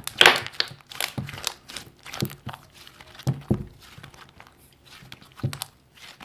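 Soft crinkling and rustling handling noises with scattered light taps and clicks.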